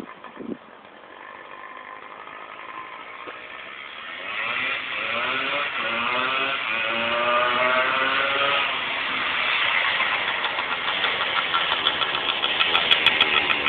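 Old dirt bike's engine, run for the first time after sitting about a year, getting louder as the bike rides toward the listener. Its pitch rises as it accelerates partway through, then holds, and near the end the engine's beat comes through as a rapid, even pulsing close by.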